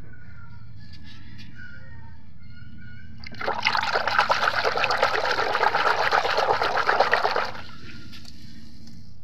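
A hand swishing and scrubbing a toy in a basin of soapy water. The rapid splashing starts about three seconds in and stops about four seconds later, over a faint low hum.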